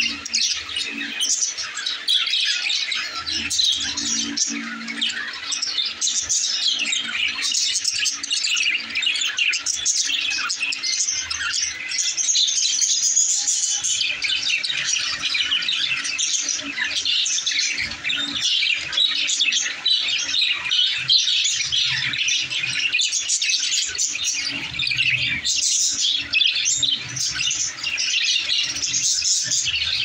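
A flock of caged budgerigars chattering and chirping without pause, many high-pitched calls and squawks overlapping.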